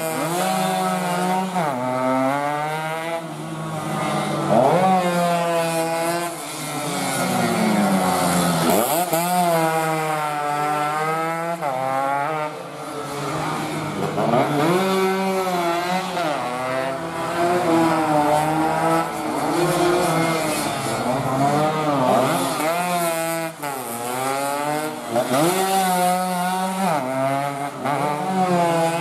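Underbone road-racing motorcycles running hard, their engines repeatedly revving up and dropping back as they shift and pass, with several bikes audible at once at times.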